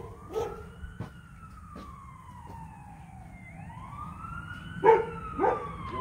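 Emergency vehicle siren wailing, its pitch slowly rising and falling. A dog barks a few times over it, loudest about five seconds in.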